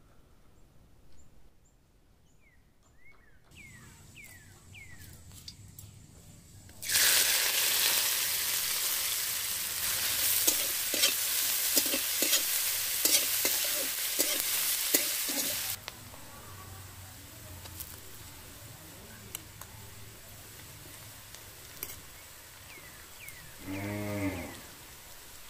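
Chopped onions frying in hot oil in a steel wok: a sudden loud sizzle starts about a quarter of the way in, with the clicks and scrapes of the onions being stirred, then after some nine seconds it drops to a steady quieter sizzle.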